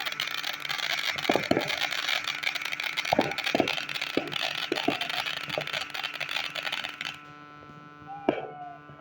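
Goldenbee Super Jumbo firework giving a steady, dense hiss with scattered sharp pops, cutting out suddenly about seven seconds in.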